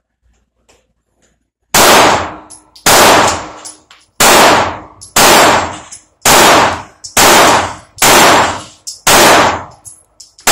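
Glock 19X 9mm pistol firing nine shots about a second apart, starting just under two seconds in. Each shot is very loud with a reverberant tail, followed by the brief clang of a steel plate being hit.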